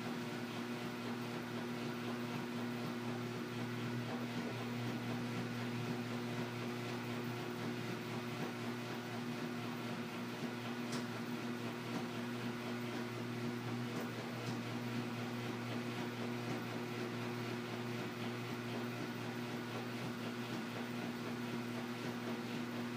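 Washing machine running: a steady motor hum under an even whirring noise, with a faint tick about eleven seconds in.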